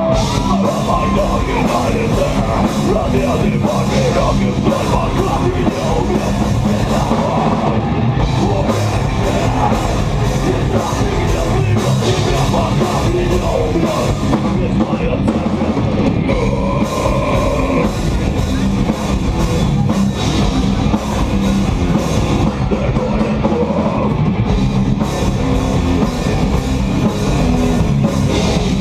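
Live rock band playing loud and fast, heavy metal or punk style: distorted electric guitars, bass and a hard-hit drum kit, heard through a phone-style recording in a small venue.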